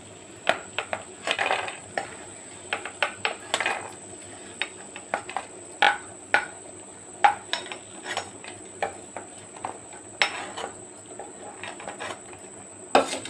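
Steel ladle clinking and scraping irregularly against a nonstick kadai as fried makhana (fox nuts) are scooped out of hot oil, with a faint steady sizzle of the oil underneath.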